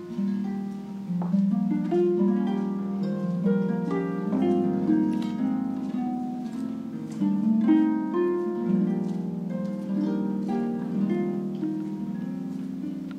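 Concert pedal harp played solo: a continuous flow of plucked notes that ring on and overlap, mostly in the lower middle of its range.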